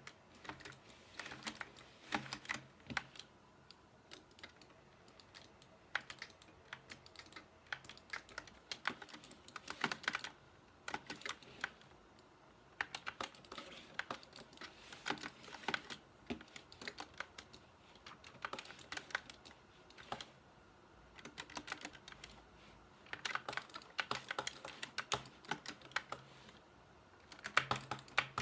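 Typing on an SK61 mechanical keyboard with red (linear) switches: quick runs of key clicks and clacks that come in bursts, with short pauses in between.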